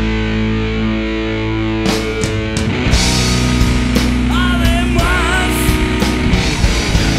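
Rock band recording with distorted electric guitar: a held chord rings for about two seconds, then the drums and full band come in, with a lead line of bent notes from about four seconds in.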